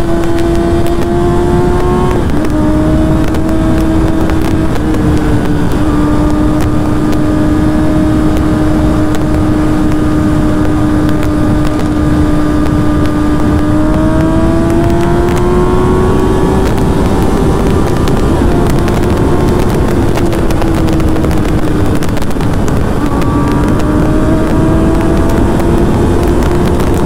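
Kawasaki ZX-10R's inline-four engine running steadily while the bike is ridden, its pitch holding, dipping slightly twice early on and rising gently then falling back in the second half. A heavy rush of wind noise lies under it.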